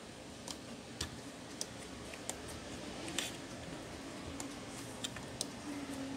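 Irregular small plastic clicks and taps as a replacement print head is pressed and seated into an Epson L120 printer's carriage, about nine in all, the loudest a little after three seconds in.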